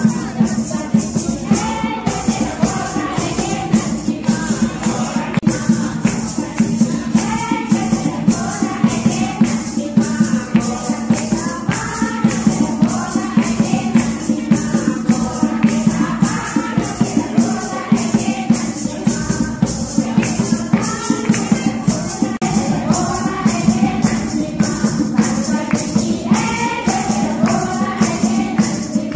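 A group of women singing a devotional song together, with a steady, fast beat of jingling hand percussion and a hand drum.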